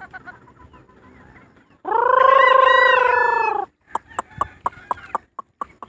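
A rooster crowing once, one long call of about two seconds starting about two seconds in, followed by a quick run of short sharp clicks.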